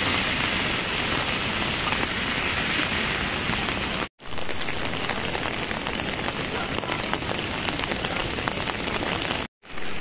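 Heavy rain falling steadily, a dense even hiss that cuts out abruptly for a moment twice.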